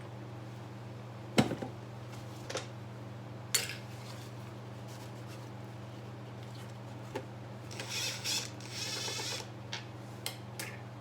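Scattered clicks and knocks of tools and small metal parts being handled while a two-stroke scooter carburetor is taken apart, the loudest knock about a second and a half in and a short rattle near the end. A steady low hum runs underneath.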